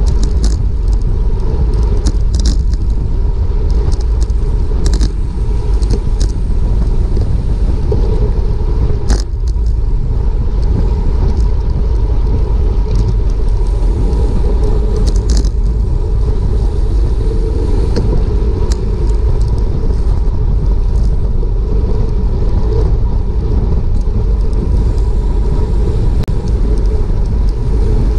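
Wind rumbling steadily on the microphone of an action camera on a racing bicycle at speed, with a few brief clicks and rattles now and then.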